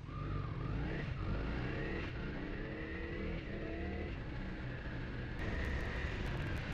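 Motorcycle engine accelerating, its pitch rising and dropping back as it shifts up through the gears.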